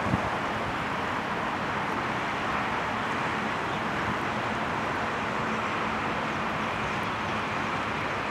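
Steady outdoor background wash like distant road traffic, with a faint low hum underneath and a brief knock right at the start.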